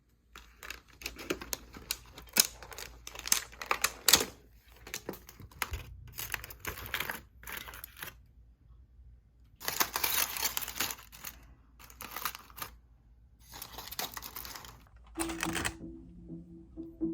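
Close, irregular clicks, taps and rustling bursts of objects being handled. Quiet background music comes in near the end.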